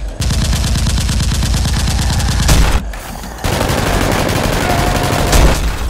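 Rapid automatic gunfire in two long bursts of a couple of seconds each, with a short break about three seconds in.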